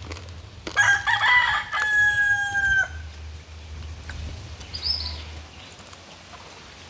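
A rooster crowing once, about a second in: a loud cry of a couple of seconds that ends on a long held note. A brief high chirp follows near five seconds in.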